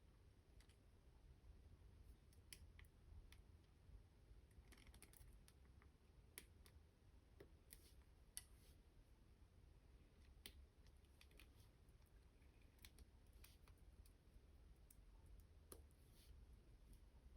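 Faint, irregular clicks and taps of small plastic toy parts and packaging being handled, with a few brief soft rustles, over a low steady hum.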